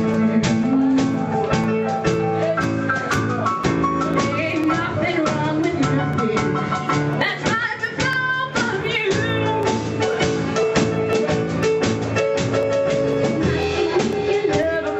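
Live band playing a bluesy rock-and-roll song with guitar and drum kit; a singing voice comes through in places.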